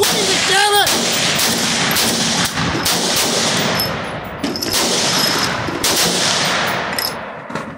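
Rapid gunfire at a shooting range, shot following shot with hardly a gap. It eases briefly about four seconds in and thins out near the end.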